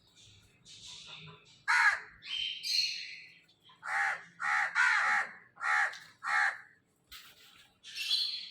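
Crows cawing: a couple of harsh caws, then a run of five loud caws about half a second apart, with fainter high chirping of other birds around them.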